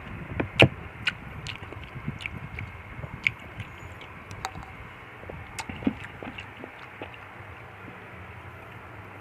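Someone eating a fruit soup with nata de coco: scattered sharp clicks and chewing over a steady hiss. The clicks are closer together in the first half and thin out later.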